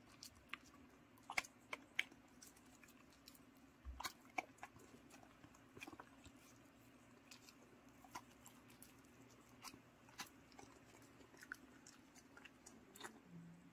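A dog chewing and licking steamed sweet potato from a person's hand: faint, irregular wet smacks and clicks of its mouth.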